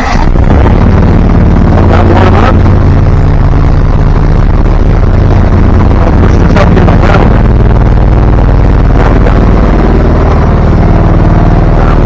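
Small air-cooled engine of a VC13C mini excavator running steadily on choke just after a cold start, with a few brief rattles over it.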